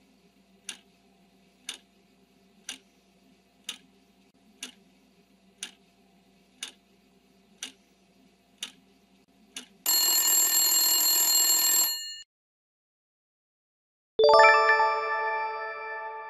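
Quiz countdown-timer sound effects: a clock ticks once a second over a faint low hum. About ten seconds in, a loud alarm bell rings for about two seconds to signal time's up. After a short pause a bright chime rings and fades, marking the answer reveal.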